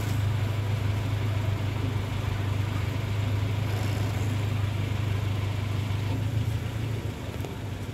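Forklift engine running with a steady low hum as the forklift drives and turns, easing off slightly near the end.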